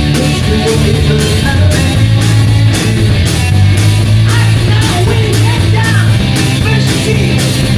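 A rock band playing loud, with distorted guitar, bass and drums, and a voice that may be singing.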